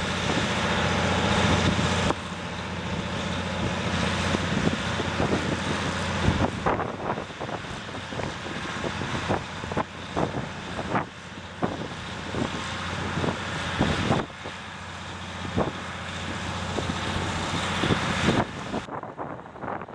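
An engine running with a steady low hum, then many short, sharp knocks and clicks scattered through the second half, over wind on the microphone.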